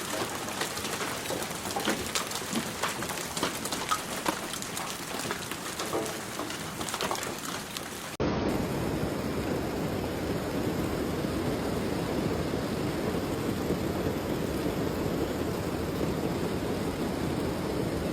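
Hail and heavy rain pelting down: for about eight seconds, a hiss of rain dotted with many sharp ticks of hailstones striking hard surfaces, then after a sudden cut, a louder, steady downpour.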